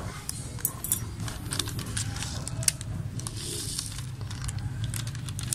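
A cut-open plastic seed packet crinkling and rustling in the hands as it is opened and tipped out into a palm, with many small clicks and crackles. A low steady hum runs underneath.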